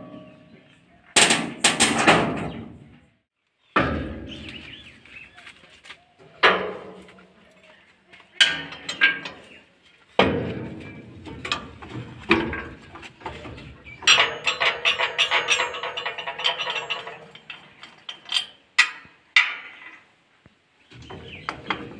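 Steel hand tools and bolts knocking and clanking on a steel tractor hitch frame while a PTO drive shaft is being coupled, with a rapid run of ringing metallic clicks from a ratchet spanner tightening a nut about two-thirds of the way through.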